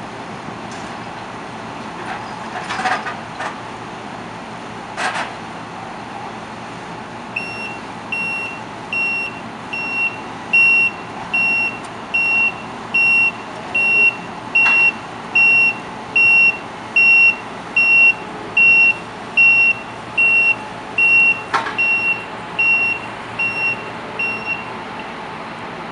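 Claas Lexion 550 combine harvester running steadily, its reversing alarm starting about seven seconds in and beeping evenly, a little more than once a second, until near the end. A few sharp knocks come in the first seconds, before the beeping starts.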